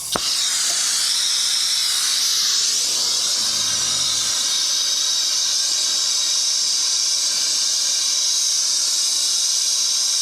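Brazing torch lit with a sharp click, then burning with a loud, steady hiss while a missed joint on the refrigerant line is brazed.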